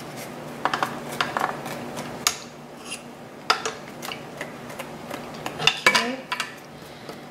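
Metal garlic press being scraped out with a silicone spatula over a plastic food processor bowl: irregular light clicks, taps and scrapes of metal handling.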